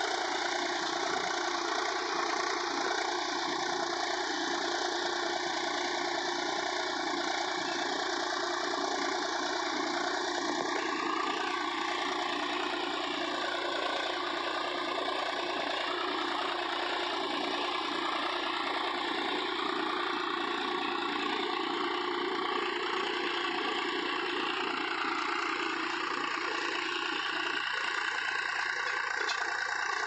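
Swaraj 843 XM 4WD tractor's three-cylinder diesel engine running steadily under load while it pulls a tillage implement through the soil in deep ploughing.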